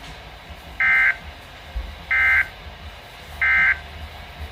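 Weather radio sounding three short buzzy SAME digital data bursts, evenly spaced about a second and a third apart: the end-of-message code that closes the weather alert broadcast.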